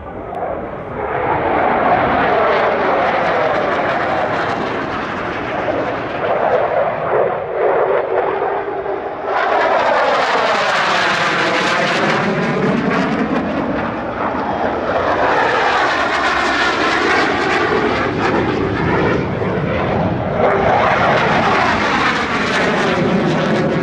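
Chengdu J-10CY fighter jets flying past, their Russian-designed AL-31F turbofan engines making loud jet noise that swells and fades with each pass, with a sweeping tone as they go by. A louder pass comes in suddenly about nine seconds in, and further passes follow.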